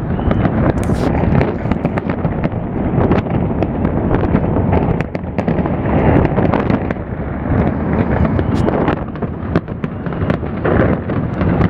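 Fireworks display: a dense, continuous barrage of booming bursts with many sharp crackling bangs on top, without a break.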